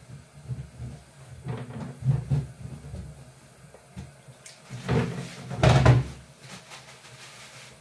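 Kitchen tap running into a stainless steel sink while utensils are washed, with several knocks and clatters of things against the sink; the loudest clatters come about five to six seconds in.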